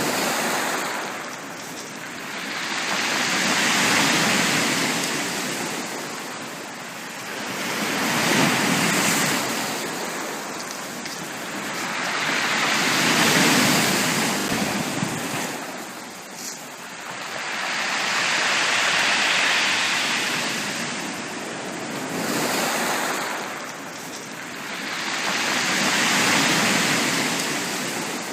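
Sea waves breaking and washing up on a beach, a surge of surf about every five to six seconds, each swelling and then drawing back.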